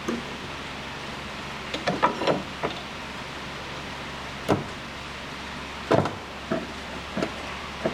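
Short metallic knocks and clunks of small broaching tooling (broach, collar and workpiece) being handled and pushed through, over a steady shop hum. There is a quick cluster of knocks about two seconds in, then single knocks spaced out after it.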